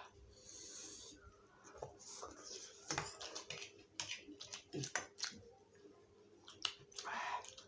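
Close-up eating of spicy instant noodles: wet chewing and slurping with many small sharp clicks. There are two hissing breaths, one in the first second and a louder one about seven seconds in, drawn against the chili heat.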